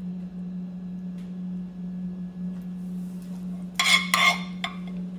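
A steady low hum, then near the end a few quick clinks of a metal spoon against a glass serving bowl as a garlic and hot-pepper topping is spooned onto the dish.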